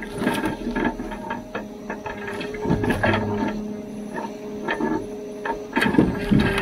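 Rottne F13-C forwarder's crane laying logs onto the load. Under a steady hydraulic and engine whine, wooden logs knock and clunk against each other as they settle, with a louder run of knocks near the end.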